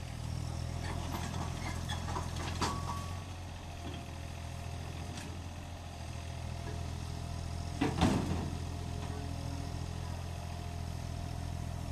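Yanmar mini excavator's diesel engine running steadily as the machine tracks down steel loading ramps off a tipper truck. A short knock comes about two and a half seconds in, and a louder clank about eight seconds in.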